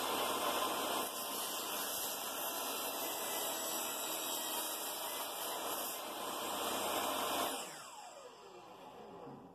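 Table saw running and crosscutting a half-inch hardwood board on a crosscut sled. About three-quarters of the way through it is switched off, and the blade and motor wind down with a falling whine.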